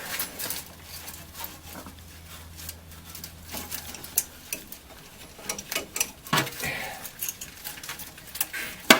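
Metal tool clinking and scraping against the exhaust pipe and its hanger while prying the pipe out of its rubber mount: a series of irregular clicks and scrapes, the sharpest just before the end.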